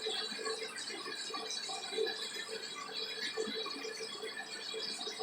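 Faint, irregular rustling and small rattles of handling, such as hands being dried on a towel.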